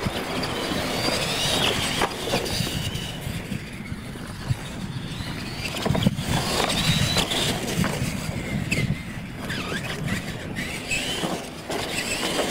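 Radio-controlled Clod Buster-style monster trucks racing on dirt: their electric motors whine, rising and falling in pitch as they accelerate and ease off. Sharp knocks come as the trucks hit and land off the wooden ramps.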